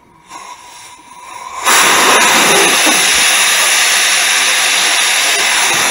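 Compressed-air blow gun blowing air over a hydraulic remote valve body to clear off oil and dirt: a soft hiss that builds, then about a second and a half in the trigger opens fully into a loud, steady hiss.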